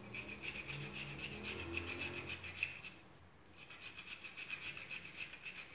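A peeled garlic clove grated by hand on a small metal grater: faint, quick, regular scraping strokes, breaking off for a moment about three seconds in.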